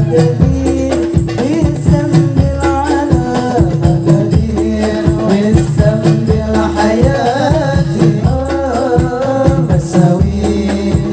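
Hadroh ensemble performing a sholawat: male voices singing a wavering, ornamented melody in Arabic over hand-beaten rebana frame drums and deep drum strokes keeping a steady rhythm.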